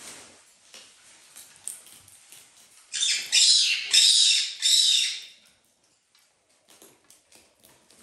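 Four harsh, screechy animal calls in quick succession about three seconds in, among faint clicking from the animals pecking at the seed dish.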